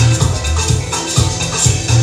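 House music playing over a venue sound system: a steady beat of about two bass hits a second with a busy high percussion pattern on top.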